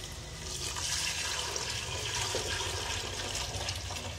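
Chicken stock poured from a small pot into a large aluminium cooking pot, a steady splashing pour that starts about half a second in.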